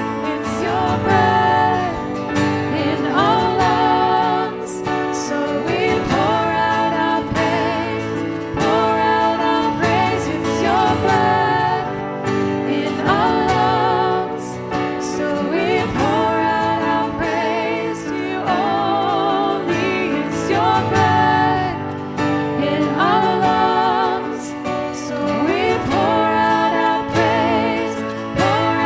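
Worship music: a sung melody over instrumental accompaniment.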